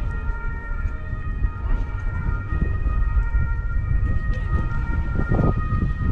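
Wind buffeting the microphone in a low, uneven rumble. Behind it is a faint steady high whine of several held tones.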